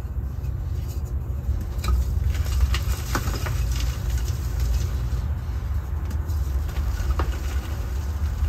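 Dried gym chalk reforms crushed and crumbled in bare hands, giving scattered soft crunches and crackles of breaking powdery chalk, most of them in the first half. Under them runs a steady low background rumble, the loudest sound throughout.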